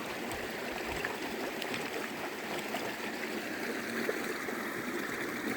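A stream running: a steady rush of flowing water, its current not strong.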